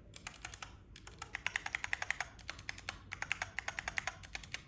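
Mechanical keyboard keys being typed in quick runs of clicks, a few scattered presses at first and then fast typing.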